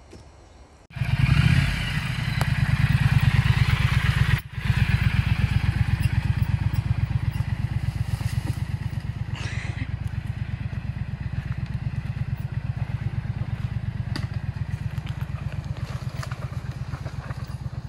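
Triumph Street Scrambler's 900cc parallel-twin engine starting about a second in and revving briefly, then running with a steady low pulsing beat as the motorcycle pulls away, slowly fading as it moves off.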